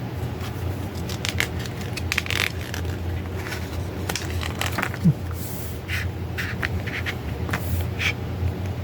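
Paper pages of a CD lyrics booklet being handled and turned, giving a series of short scrapes and crinkles, with a small knock about five seconds in, over a steady low hum.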